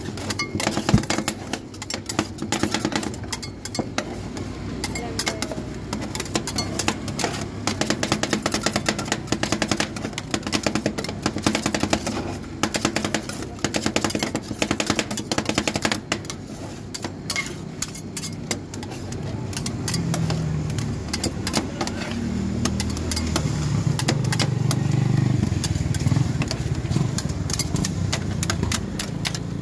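Metal spatulas rapidly chopping and scraping on the steel freezing plate of a rolled ice cream machine as the chocolate ice cream base is worked and sets: a continuous clatter of quick taps. A low engine hum runs underneath and grows louder from about twenty seconds in.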